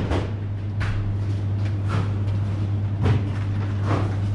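Steady low hum from a bank of refrigerated display cases, with irregular knocks and clicks over it.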